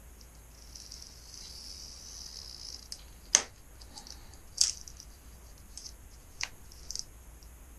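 Screen spline being pressed into a frame channel with a spline roller: a light high rasping hiss for about two seconds, then several sharp separate clicks and taps.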